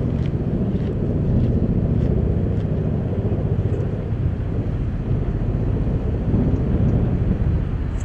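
Steady low rumble of wind buffeting the microphone, with a few faint ticks.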